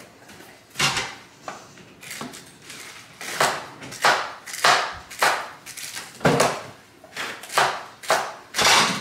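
A knife chopping celery on a cutting board, in crunchy strokes. There are a few scattered cuts at first, then a steady run of about two cuts a second from about three seconds in.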